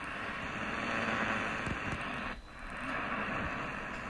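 AM medium-wave static and hiss from the Eton Field BT Grundig Edition radio's speaker while it is tuned across the band. The noise drops out briefly about two and a half seconds in as the tuning steps from 729 to 738 kHz, where the station comes in weak, far below its usual strength.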